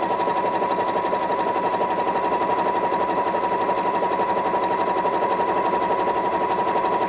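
Janome 4120 computerized sewing machine stitching a dense satin stitch (a closely spaced zigzag) at a steady speed: a rapid, even needle rhythm over a steady motor hum.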